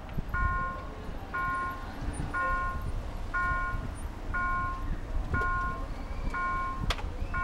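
Railway level-crossing warning bell (an Autotrol installation) sounding a steady ringing tone about once a second while the barriers lower. Road traffic rumbles low underneath, and there is a sharp click near the end.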